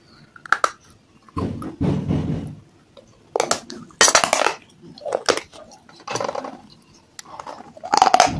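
A small fired terracotta clay cup, coated in white paste, being bitten and chewed: irregular bursts of crunching and cracking, the loudest bites about four seconds in and near the end.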